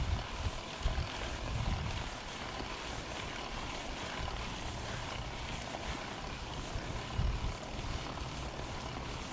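Wind rushing over an action camera's microphone and mountain bike tyres rolling over a dirt trail on a fast descent, with low gusts of wind buffeting near the start and again about seven seconds in.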